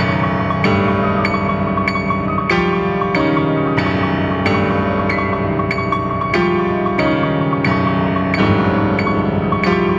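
Solo piano playing a loud, dense passage: chords struck every half second or so under a rapidly repeated high note.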